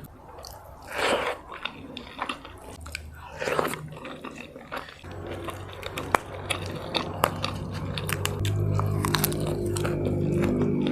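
A person biting and chewing food close to the microphone, with repeated crisp crunches and mouth sounds. From about five seconds in, a steady low hum runs underneath and grows louder toward the end.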